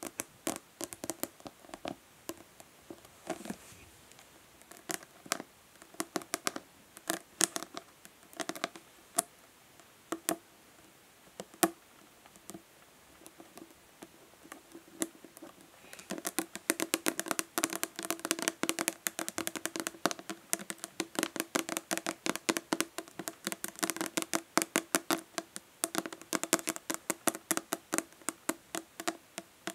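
Natural fingernails tapping on a plastic body lotion bottle, each tap carrying a low ringing note from the bottle. The taps are scattered at first, then turn fast and dense about halfway through.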